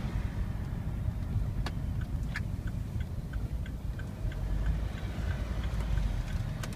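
A car's turn-signal indicator ticking evenly, about three ticks a second, starting a couple of seconds in, over the low rumble of the car moving.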